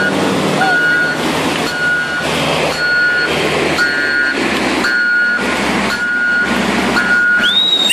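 A heavy machine's reversing alarm beeping repeatedly at an even pace, a little more than once a second, as a loader backs up, with its engine running underneath. The steady rush of muddy floodwater runs throughout, and a high whistle rises near the end.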